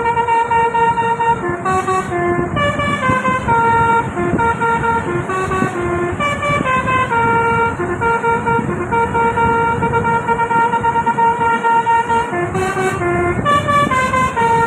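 Tour bus's Basuri telolet musical horn playing a melody: a run of held notes stepping up and down in pitch, some short and some held for a second or two.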